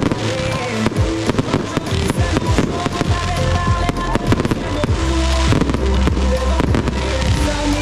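Fireworks display: aerial shells and cakes bursting with many sharp bangs and cracks in quick succession, over music.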